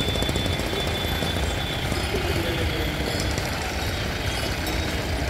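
Jeep engine idling and ticking over as the vehicle creeps slowly along the road, a steady low rumble.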